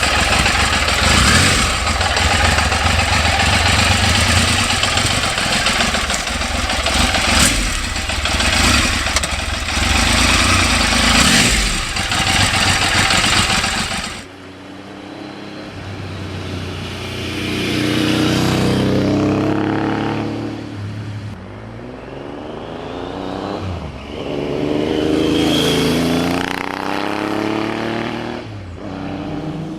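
Triumph Legend TT motorcycle's three-cylinder engine, loud and close for about fourteen seconds. It then changes abruptly to two passes by the bike about four seconds into and near the end of the rest, each engine note swelling and falling in pitch as it goes by.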